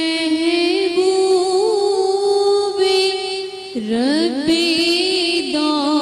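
A girl reciting a naat unaccompanied, one voice holding long, slightly wavering notes. About four seconds in she drops low and sweeps back up into a new phrase.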